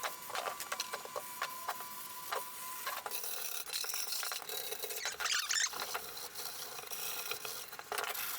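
Wire brush scrubbing stripper-softened paint off a steel tool chest drawer: a run of short, irregular scratching strokes.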